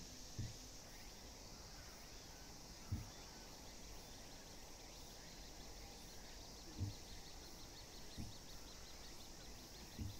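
Faint outdoor ambience: a steady high insect-like hiss, with a fast even run of soft high ticks, about five a second, through the second half. A few short dull low thumps come at intervals.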